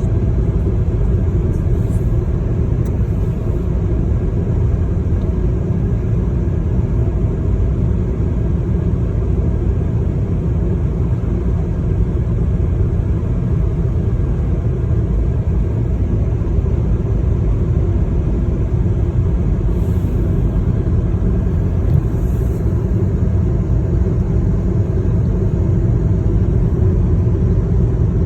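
Steady low rumble of a car on the move: road and engine noise with no pauses or changes.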